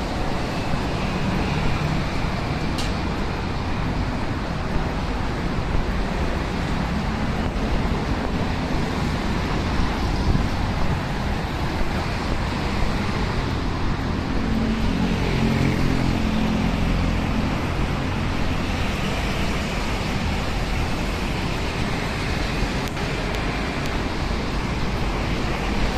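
Steady traffic noise from cars on a busy multi-lane road alongside. About halfway through, one vehicle's engine note swells and fades as it passes.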